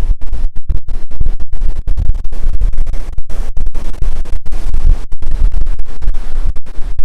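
Strong wind buffeting the microphone: a loud, rough low rumble broken by many brief dropouts.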